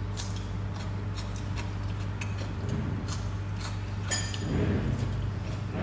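Light clicks and clinks of utensils against dishes while food is served, coming thicker about four seconds in, over a steady low hum.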